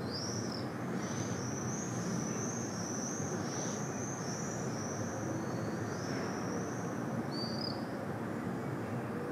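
Common swifts screaming: a long, high, wavering trill lasting several seconds, with short screams at the start and near the end. Under it runs a steady low rumble of distant city traffic.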